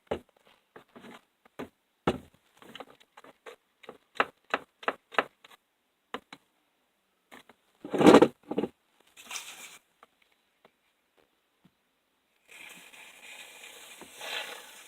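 Slime being stirred with a mixing tool in a container: a quick run of small taps, clicks and scrapes, a louder clatter about eight seconds in, then a steady rushing scrape near the end.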